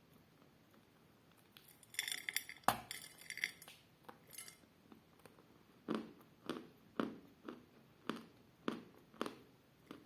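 Pieces of chalk clink and knock against a container, with one sharp knock. A few seconds later come steady chewing crunches of chalk, about two a second.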